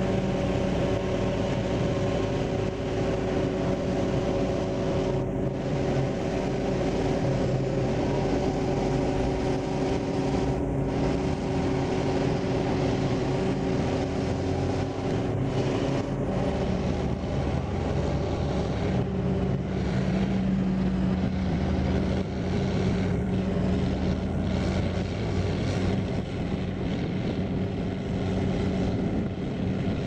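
Diesel engines of a John Deere 7350i self-propelled forage harvester and a Zetor 16145 tractor running steadily while the harvester blows chopped grass into the towed forage wagon. About halfway through, the sound changes to the Zetor tractor alone, pulling the loaded wagon across the field.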